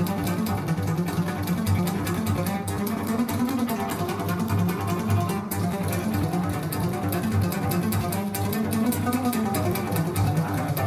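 Recorded music played back through TriArt Hartley loudspeakers: a piece led by bowed low strings, with steady, sustained bass notes.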